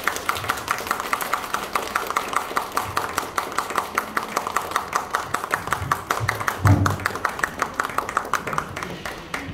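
An audience clapping, many separate hand claps close together, slowly dying away toward the end. There is a brief low thump about two-thirds of the way through.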